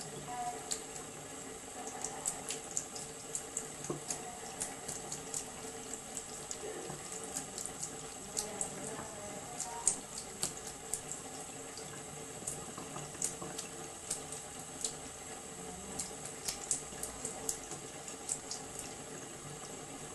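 Kitchen tap running a thin stream into the sink as a steady trickle, broken by quick, irregular little clicks and splashes as a cat laps water straight from the stream.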